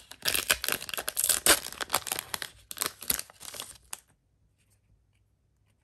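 Foil trading-card booster pack wrapper being torn open and crinkled as the cards are pulled out: a run of crackling tears and rustles that stops abruptly about four seconds in.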